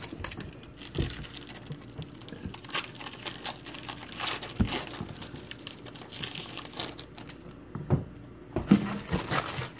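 Trading-card pack wrapper crinkling and rustling as a pack is opened and the cards are handled, with a few sharper snaps and taps along the way.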